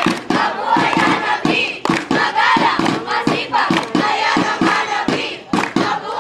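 A group clapping in a quick, even rhythm, about three to four claps a second, while many voices chant along together as a group cheer. The clapping and voices dip briefly a little after five seconds in.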